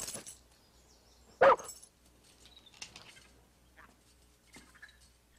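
A dog barks once, a short sharp bark about a second and a half in.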